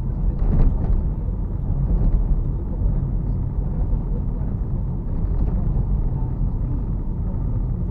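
Car driving slowly on a city street, heard from inside the cabin: a steady low engine and road rumble, with a brief louder noise about half a second in.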